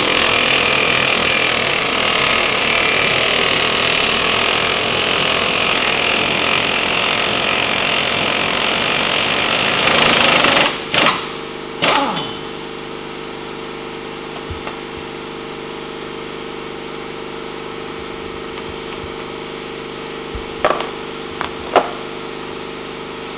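Impact wrench hammering on a front hub's CV axle nut for about ten seconds, then two short bursts before it stops. A quieter steady hum remains, with a few faint clicks.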